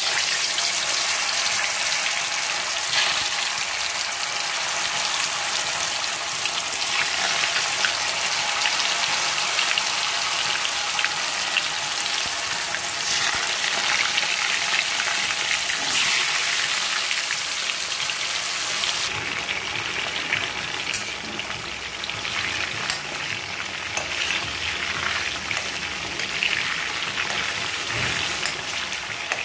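Marinated chicken pieces deep-frying in hot oil: a steady, dense sizzle with constant fine crackling and a few sharper pops now and then.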